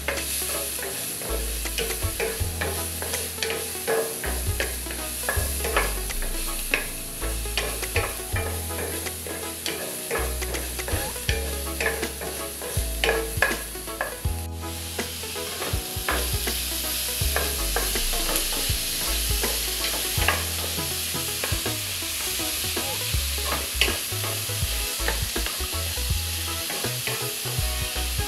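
Minced garlic and onion sizzling in hot oil in a nonstick frying pan, with a wooden spatula stirring and scraping the pan in frequent light clicks over the steady sizzle.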